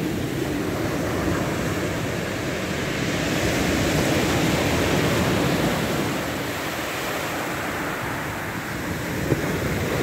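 Heavy surf of a rough sea, with waves of five to six metres, breaking and washing up a dark shingle beach: a steady rush of water that swells louder in the middle and eases again.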